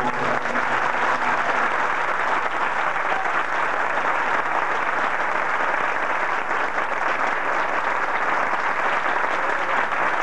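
Concert audience applauding steadily at the end of a song.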